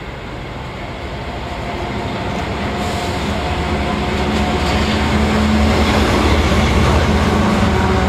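Diesel locomotives at the head of a freight train approaching and passing close by, engines running with a steady hum and wheels rumbling on the rails, growing steadily louder.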